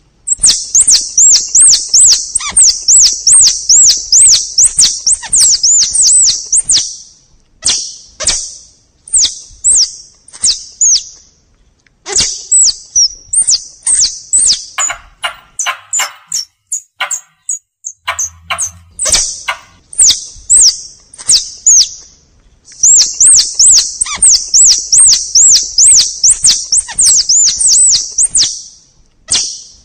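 Tupai lure call: rapid, high-pitched looping chirps at about four a second, in runs of a few seconds separated by short pauses, with sharp clicks in between.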